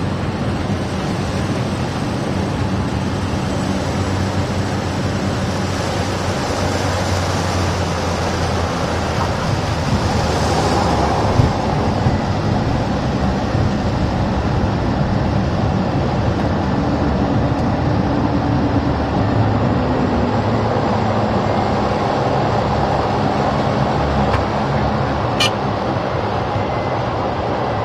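Cessna 208 Caravan's Pratt & Whitney Canada PT6 turboprop engine and propeller, heard from inside the cockpit during landing, a loud steady drone with rushing air. A surge and a thump come about eleven seconds in as the wheels touch down. Later a low tone falls slowly during the rollout, and a brief click comes near the end.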